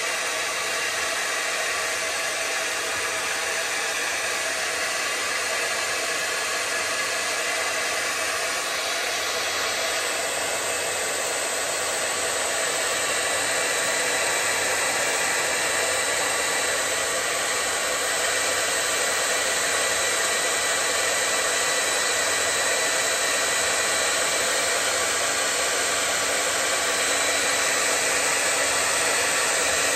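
Handheld hair dryer blowing steadily at full power as a heavy load on a 1500 W pure sine wave inverter, drawing about 1,370 watts, with the inverter's cooling fans running under the load. The sound cuts off abruptly at the end.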